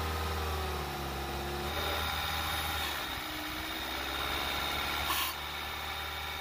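Gasoline direct-injection car engine running at a raised idle of about 2,500–3,000 rpm. Its speed dips and recovers twice as brake parts cleaner is sprayed into the intake in short bursts. A short spray hiss comes about five seconds in.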